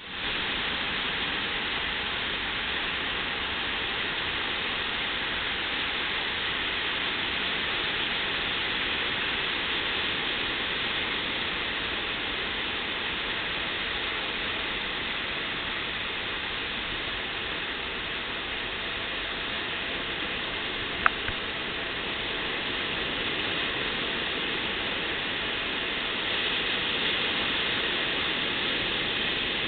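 Ocean surf breaking along a sandy beach: a steady, even rush of noise, with one sharp click about two-thirds of the way through.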